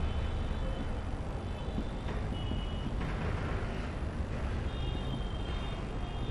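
Marker pen squeaking and scratching on a whiteboard while writing, with short high squeaks now and then, over a steady low background rumble.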